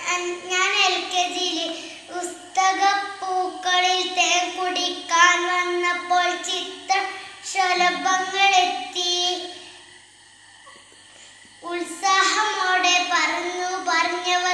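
A young child singing a song solo with no instruments, holding notes in a high child's voice, with a pause of about two seconds about two-thirds of the way through before the singing resumes.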